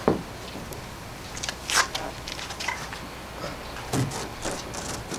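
Handling noise of a large flexible fiberglass-backed solar panel being flipped over on a vehicle hood: the sheet rustles and flexes with light clicks, with a dull thump at the start, a sharp swish about a second and a half in, and another thump about four seconds in.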